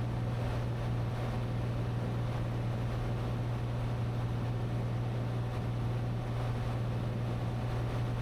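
Cessna 182T's Lycoming IO-540 six-cylinder engine and propeller running steadily at cruise power, heard from inside the cockpit as a constant low drone with an even rushing hiss over it.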